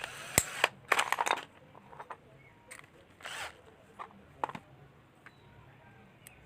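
Crafting sounds while a small toy is being built: a run of scraping and rustling in the first second and a half, then scattered clicks and taps, with a short scrape about three seconds in.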